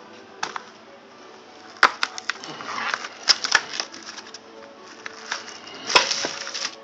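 Cardboard carton of a frozen Stouffer's entrée being pulled open and handled, with a run of sharp crackles and snaps of cardboard and the plastic tray. The loudest snaps come about two seconds in and again near the end, as the tray slides out of the carton.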